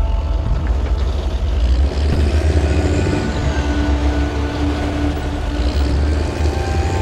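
Caterpillar D7R bulldozer's diesel engine running under load, a loud, steady low rumble, with black smoke coming from its exhaust stack.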